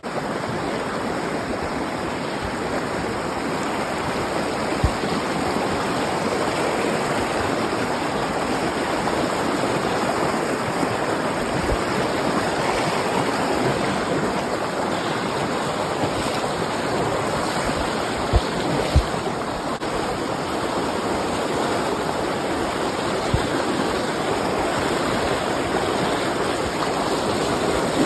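Rain-swollen creek rushing fast over rocks, a steady loud whitewater rush, with a few brief low thumps scattered through it.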